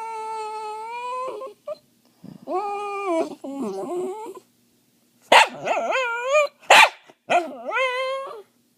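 A dog making a run of about five long, drawn-out pitched calls, some held steady and some wavering up and down, with two short, loud, sharp cries in the second half.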